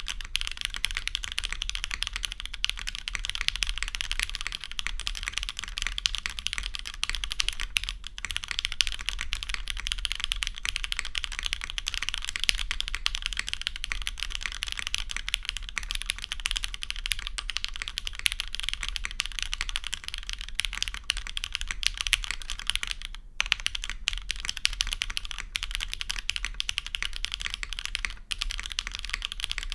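Continuous fast typing on a custom Matrix mechanical keyboard with lubed, polished Hyperglide Cherry MX Black linear switches and GMK keycaps: a steady stream of key clacks, with a brief pause about three-quarters of the way through.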